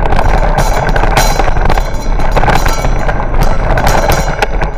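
Wind buffeting the microphone of a camera on a moving bicycle, mixed with rattling knocks and crunching as the bike rolls over a rough dirt and gravel track.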